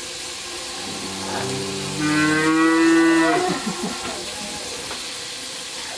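A cow mooing: one long call that swells about two seconds in and falls away about a second and a half later.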